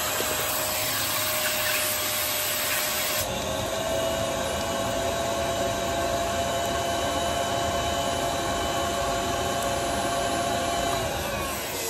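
Vacuum cleaner running with its hose on the valve of a vacuum storage bag of clothes, sucking the air out of it. It is a steady motor note over airflow hiss. About three seconds in, the hiss thins and the note rises slightly.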